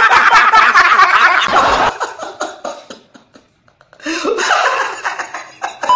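Several men laughing hard together for about two seconds. After a quiet gap, another stretch of voice comes in near the end.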